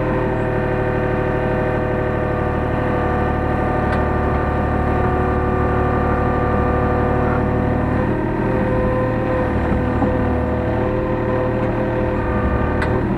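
Hyundai R35Z-9A mini excavator's diesel engine running under load while loading a truck, a steady engine note with several held whining tones above it that shift pitch about 8 seconds in as the controls are worked.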